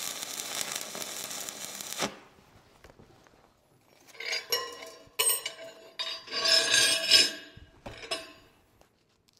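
Stick-welding arc from a 3/32 in. 7018 rod at 105 amps, burning steadily for about two seconds and then cutting off as the tack is finished. From about four seconds in, a chipping hammer strikes and scrapes the steel tack weld in a series of ringing metallic clinks.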